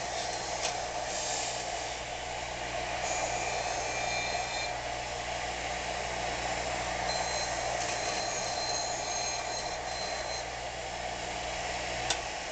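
A power-driven wire brush running steadily while rusty steel vise parts are held against it to scour off surface rust, with high squealing tones coming and going twice. A sharp click near the end.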